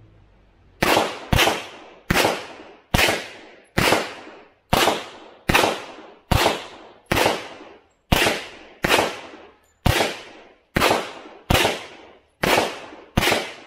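A semi-automatic pistol fired sixteen times in steady succession, about one shot a second, with the first two closer together. Each shot is a sharp crack that trails off in a short echo.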